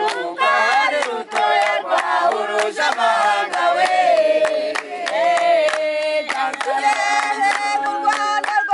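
A group of men, women and children singing together and clapping their hands in time.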